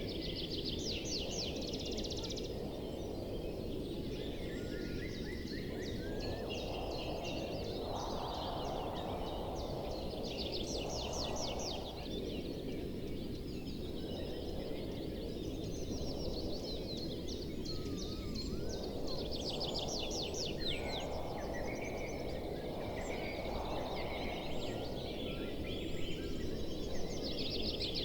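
Wild birds singing, with a fast high trill repeated every several seconds among shorter chirps, over a steady rushing background noise.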